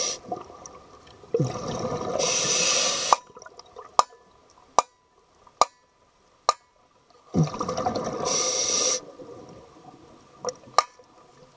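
A scuba diver breathing through a regulator underwater: two breath cycles, each a bubbling rush with a high hiss, about five seconds apart. In the quiet stretch between them come a series of sharp clicks, about one a second.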